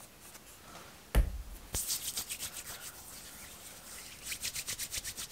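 A thump about a second in and a sharp click just after, then hands rubbing quickly over skin, about ten strokes a second near the end, spreading a skincare product from a small plastic bottle.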